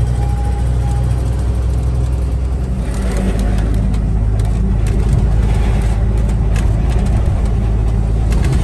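Truck's diesel engine running steadily under way, heard from inside the cab, with road and wind noise over a constant low drone.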